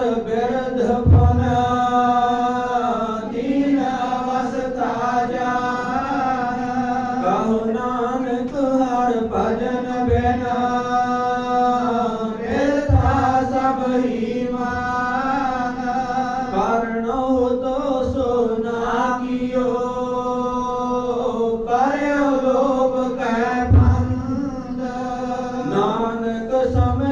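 Sikh Gurbani saloks sung in a slow chanting style over a steady held drone note, the voice gliding between pitches. A few deep low thuds fall under it, one about a second in, more around ten to thirteen seconds in and near the end.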